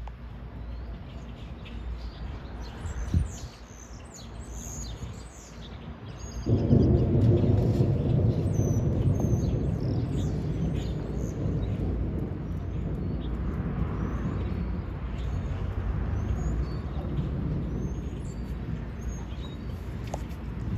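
Birds chirping outdoors, with a loud low noise that comes in suddenly about six and a half seconds in and carries on underneath the birdsong.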